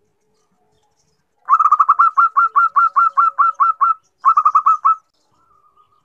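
Zebra dove (perkutut) giving a fast run of short, clipped cooing notes, about six a second, then after a brief break a second shorter run of about five notes. The uploader presents it as a female calling for a male.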